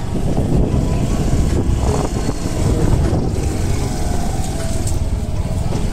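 A vehicle on the move: steady low rumbling noise of an engine and the road, with no break.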